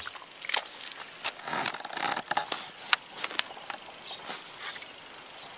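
Steady high-pitched insect trilling, one unbroken tone, with scattered light clicks and rustles over it.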